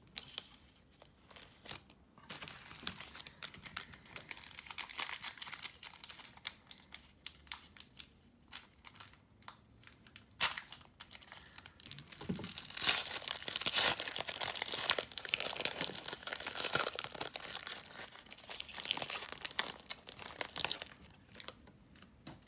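Foil trading-card pack wrapper crinkling and tearing as it is opened, in scattered crackles that grow busiest past the middle and stop near the end.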